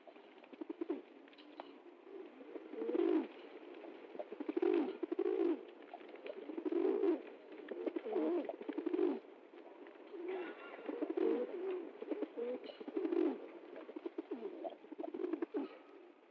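Pigeons cooing: a run of low, warbling coos repeated every second or two, several birds overlapping at times.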